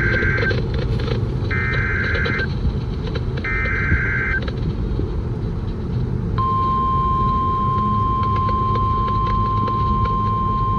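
NOAA Weather Radio alert signalling a new severe thunderstorm warning: three short buzzy bursts of SAME digital header data about two seconds apart, then, after a pause, the steady 1050 Hz warning alarm tone starts about six seconds in and holds. A steady car rumble runs underneath.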